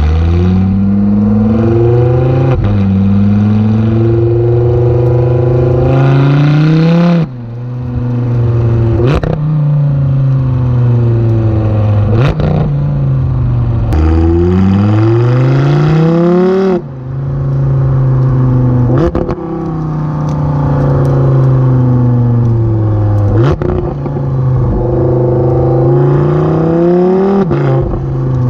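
Audi R8 5.2 V10 through a Cobra Sport valved cat-back exhaust, heard at the tailpipe while being driven: the engine note climbs steeply under acceleration and drops sharply at each gear change, again and again. Between pulls it falls away as the throttle is lifted, with several sharp cracks from the exhaust on the overrun.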